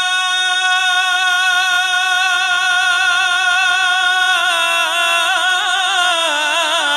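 Male naat reciter singing into a microphone, holding one long, steady note. About four seconds in, the note breaks into a wavering, ornamented run.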